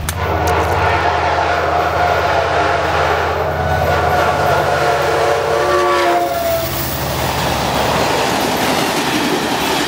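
Locomotive horn sounding one long multi-tone chord for about six seconds as a train passes close, the chord dropping slightly in pitch as it ends. It gives way to the steady rumble of the train's wheels on the rails, over a low engine drone.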